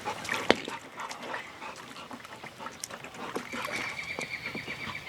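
A dog at puddle water, with irregular small clicks and splashes. A faint thin high tone runs through the second half.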